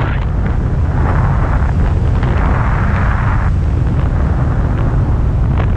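Wind buffeting the microphone of a selfie-stick camera during a tandem parachute descent under an open canopy: a steady, loud, low rush of wind noise.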